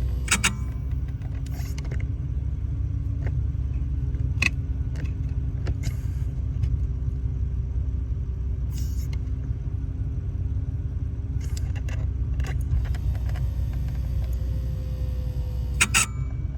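Lexus GX470's V8 idling as a steady low rumble heard from inside the cabin, with a few short squeaky creaks near the start, about four seconds in and near the end. The creaks come from the brake pedal being pressed and released, a fault that does not affect braking.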